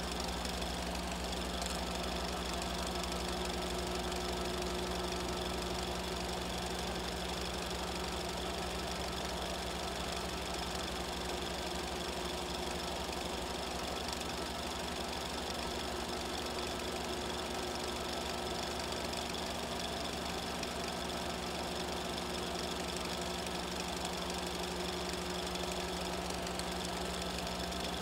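Steady mechanical whirring and clatter of a motor-driven 8mm film mechanism running at an even speed, with a fixed hum that does not change with the picture.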